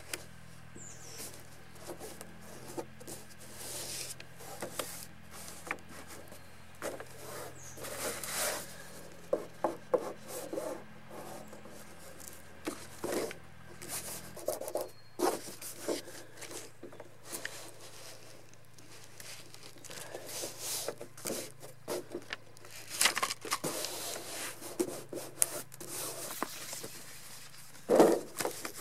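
Hands rubbing and smoothing blue insignia cloth onto a clear monofilm sail panel, with irregular rustling and crinkling of the plastic film. A louder rustle comes near the end as the insignia piece is lifted off the panel.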